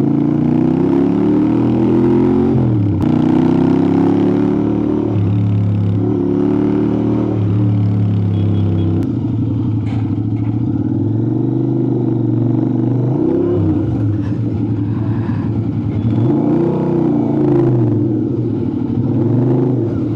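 Royal Enfield motorcycle's exhaust, picked up close by a microphone near the pipe, running loud under way. The engine note climbs and drops sharply several times as gears are shifted, with steady cruising stretches between, and swells up and back down near the end.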